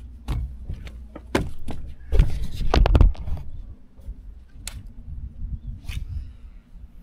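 Knocks and rattles of fishing gear being handled, with a heavier cluster of thumps about two to three seconds in, over a faint steady low hum.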